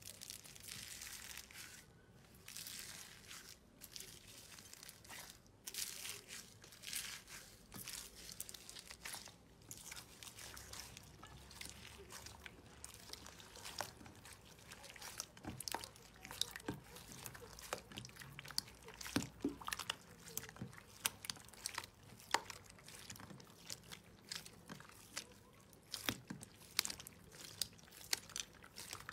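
Hands pressing into a dish of loose foam beads with a dry, rustling crunch, then squeezing and stretching clear slime full of foam beads, which gives many small crackles and sharp little pops.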